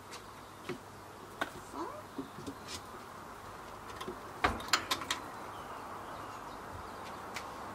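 Wooden rabbit hutch door and its metal latch being handled: a few scattered knocks, then a quick cluster of sharp clatters about four and a half seconds in, the loudest part.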